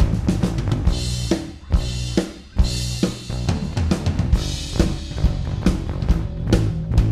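Live drum-and-bass track played through compressor plugins: a fast acoustic drum kit with kick, snare and cymbals over a sustained bass line. The drums thin out for a moment about two seconds in, then come back.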